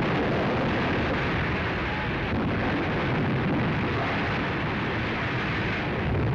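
Newsreel soundtrack of the Hindenburg airship's hydrogen explosion and fire: a dense, steady roar of blast and flames that keeps up unbroken.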